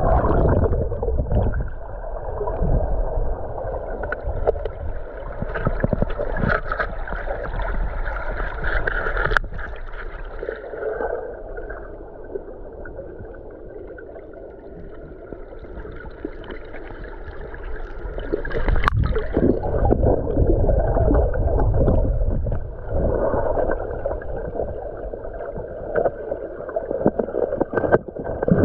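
Muffled rush and gurgle of river current heard through an underwater camera housing, with two sharp knocks against the housing.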